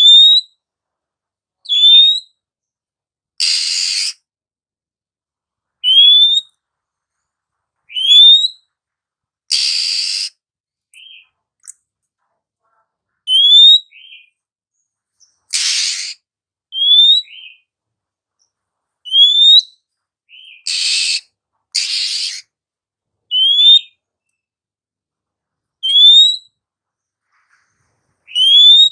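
Female oriental magpie-robin (kacer) giving a short rising whistle every two to three seconds, mixed with a few harsh, rasping calls.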